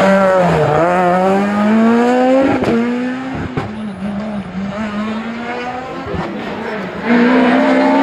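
Peugeot 207 S2000 rally car's four-cylinder engine dropping in pitch as it brakes into a hairpin, then revving up hard out of it, with a few sharp cracks, and fading as the car pulls away. About seven seconds in, another rally car's engine comes in loud at high revs.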